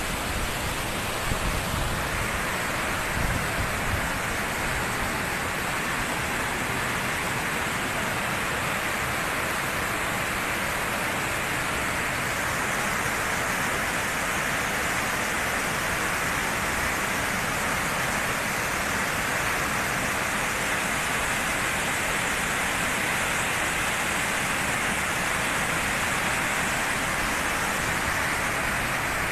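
Steady rush of storm runoff pouring in a sheet over the broken edge of a collapsed road, with a few low bumps of wind on the microphone near the start.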